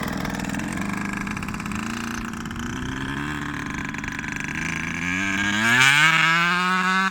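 KTM SX125 two-stroke single-cylinder engine idling unevenly, then revved up about five seconds in, its pitch rising and then held steady at higher revs.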